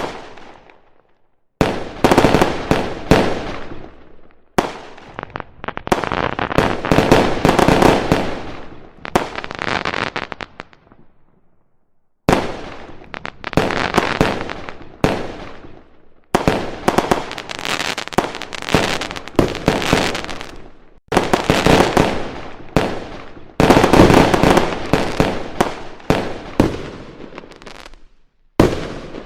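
Fireworks going off in rapid volleys of bangs and crackles: about seven runs, each starting suddenly and tailing off, with short pauses between.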